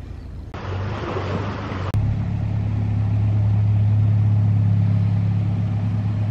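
A narrowboat's diesel engine running steadily with a low hum. It comes in abruptly about two seconds in, after a brief hiss.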